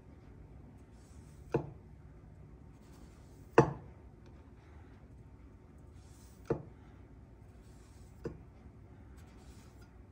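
Kitchen knife scoring a halved potato on a wooden cutting board, its blade knocking on the board four times as it cuts through. The second knock is the loudest.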